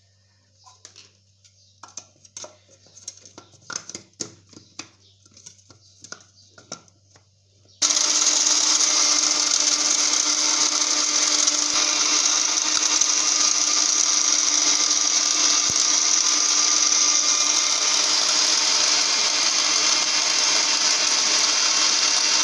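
Small electric grinder (a spice-mill type) grinding lumps of alum into powder: it starts abruptly about eight seconds in and runs steadily and loudly with a constant motor hum. Before it starts, a few light clicks and knocks as the grinder is loaded and closed.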